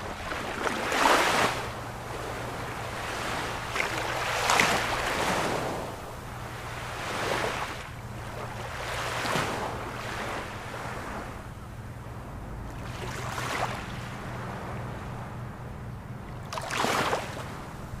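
Sea waves breaking and washing up the shore, one surge after another every few seconds, with the loudest crashes about a second in, about four and a half seconds in, and near the end.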